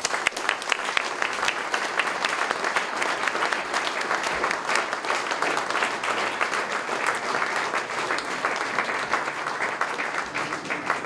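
Audience applauding: steady clapping of many hands that breaks out suddenly at the end of a speech.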